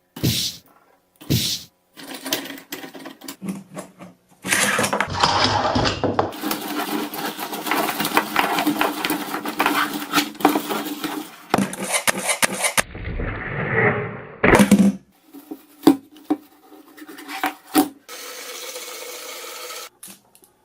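Small hard toy pieces clicking and clattering: a few separate clicks, then a long stretch of dense rattling, then scattered knocks.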